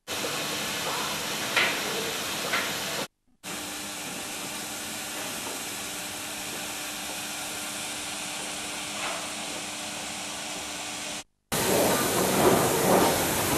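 Steady hiss of steam escaping from a 16A class Garratt steam locomotive in steam, with a couple of faint knocks near the start. The sound drops out briefly twice.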